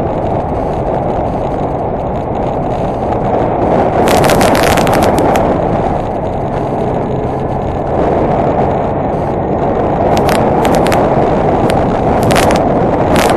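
Honda Deauville NT650V motorcycle riding along, its 650 cc V-twin engine buried in a dense rushing noise of wind and road on the onboard camera. Brief bursts of crackling rattle come about four seconds in and several times near the end.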